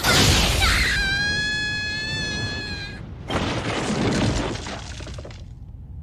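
Animated battle sound effects: a loud crash and blast, then a held, slightly falling high wail from about one to three seconds in, then a second crash of breaking, clattering scrap metal that dies away near the end.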